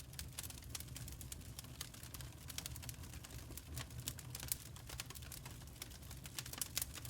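Birch firewood burning, crackling with irregular pops and snaps over a steady low rumble.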